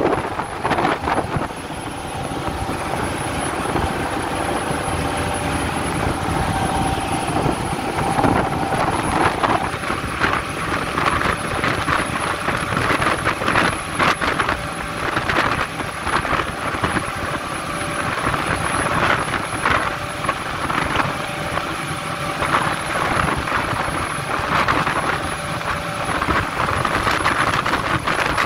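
Passenger boat's engines running steadily, mixed with rushing wind and the churning wake, and wind gusts buffeting the microphone.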